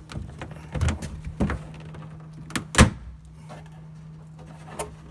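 The plastic pocket in a Toyota Tacoma's bed, behind the gas door, being lifted and pulled out by hand: a few short knocks and clunks, the loudest about three seconds in, over a steady low hum.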